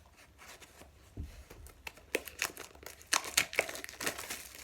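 Packaging being opened by hand: crinkling and tearing with a run of sharp crackles, getting denser and louder from about two seconds in, with a dull thump about a second in.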